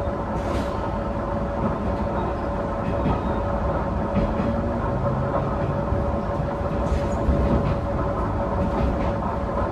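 Tenryu Hamanako Railroad diesel railcar running, heard from inside the car: a steady engine rumble with a held tone over it and a few faint clicks from the wheels on the track.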